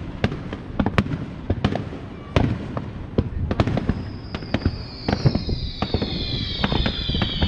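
Fireworks bursting in quick succession, sharp bangs one after another. From about halfway, several high whistles sliding slowly down in pitch sound together over the bangs.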